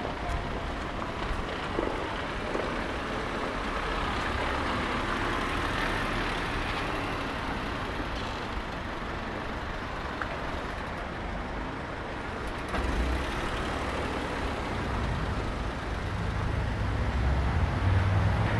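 City street ambience: steady road traffic noise, with a heavy vehicle's low rumble growing louder near the end.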